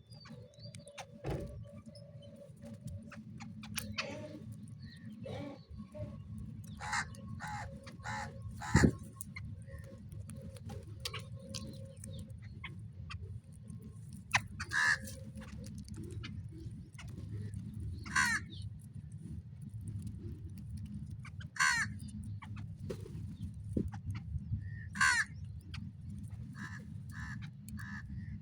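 Crows cawing: a quick run of short calls around a quarter of the way in, then single loud caws every three to four seconds in the second half, over a steady low rumble.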